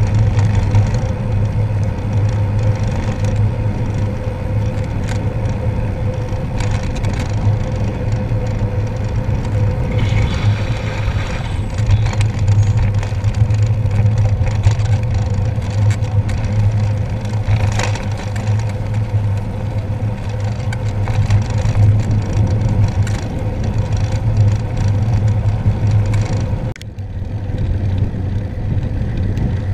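Wind rushing over the microphone of a camera on the handlebars of a moving road bike, a steady low rumble, with the bike's tyres hissing on the wet road beneath it. The noise drops sharply for a moment near the end, then picks up again.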